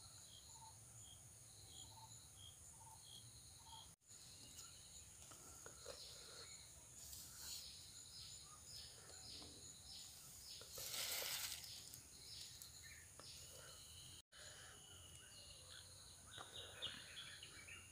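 Faint outdoor ambience: a steady high-pitched insect drone with repeated chirps, and a brief rustle about two thirds of the way through.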